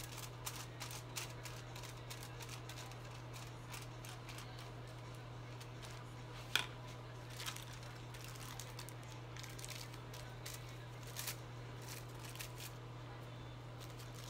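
Aluminium highlighting foil crinkling and crackling in irregular clicks as hair colour is brushed on and the foil is folded, the sharpest crackle about six and a half seconds in. A steady low hum runs underneath.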